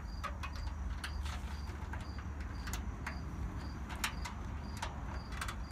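Light clicks and taps of steel cabinet panels being handled and lined up for screwing, over a steady low rumble. A faint high pip repeats about twice a second.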